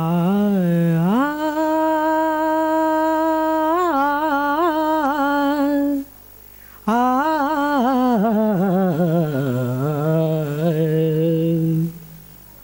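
A man singing unaccompanied into a microphone, with no words: two long melodic phrases. The first rises about a second in and is held with quick ornamental turns; the second falls with wavering turns. A short break lies between them.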